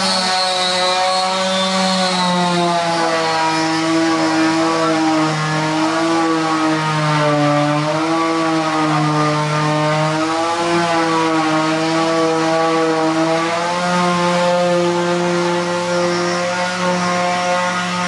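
A motor running steadily, its pitch wavering slowly up and down.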